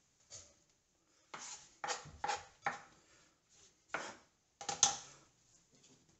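Kitchen knife scraping and tapping on a wooden cutting board as chopped scallions are swept off it into a glass bowl: a string of about seven sharp knocks and scrapes, the loudest a little before five seconds in.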